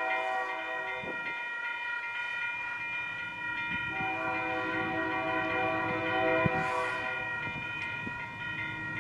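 Union Pacific freight locomotive's multi-chime air horn sounding one long, steady chord as the train approaches. Its lower notes drop out about a second in and come back near four seconds, over the low rumble of the locomotives and train.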